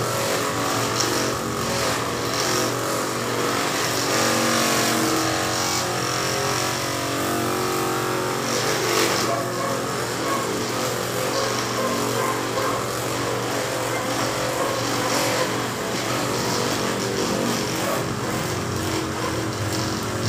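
A motor engine running steadily, with no clear starts or stops.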